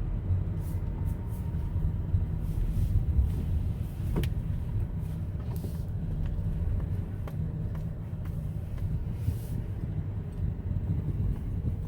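A car's engine and road rumble heard from inside the cabin, a steady low drone, with a sharp click about four seconds in.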